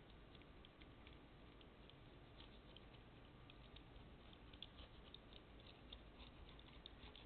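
Faint, irregular ticking and scraping of a razor knife's dull edge being pushed along the seam between synthetic bowling-lane panels, plowing out the old seam sealant.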